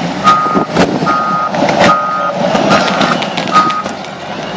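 Doosan wheel loader's reversing alarm beeping steadily, about one beep every 0.8 seconds, over the loader running as it backs out of the compost pile with a full bucket. The beeping stops near the end. Several sharp knocks sound in between.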